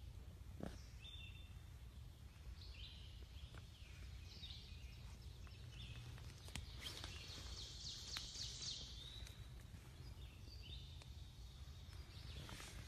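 Songbirds singing in short, repeated high phrases in the woods, over a steady low rumble, with a few faint clicks and rustles from footsteps in the dry leaf litter.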